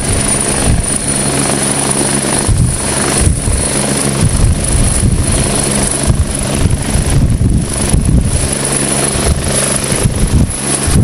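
Agusta A109 twin-turbine helicopter running at full rotor speed, with a steady high turbine whine over the rotor's rapid beat, lifting off near the end.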